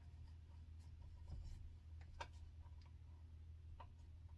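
Near silence: a few faint, scattered clicks and light taps of small parts being handled on the side of a chainsaw, over a steady low hum.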